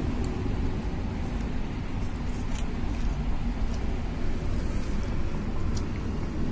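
Steady low rumble of background noise, traffic-like, with a few faint sharp clicks scattered through it.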